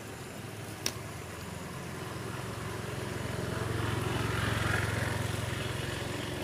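A motor vehicle passing close by, its engine sound growing to loudest about four to five seconds in and then fading. A single sharp click comes about a second in.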